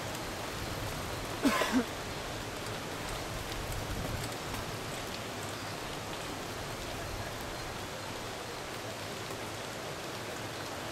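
Steady hiss of a pack of mountain bikes rolling past on tarmac, with a brief shout about a second and a half in.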